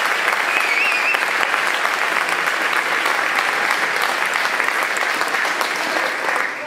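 Audience applauding: dense, steady clapping that dies down near the end.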